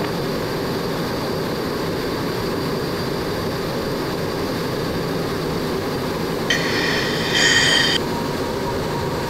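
MiG-17's turbojet and airflow heard from the cockpit as a steady, even rumble. About two-thirds of the way through there is a brief high-pitched hiss lasting about a second and a half.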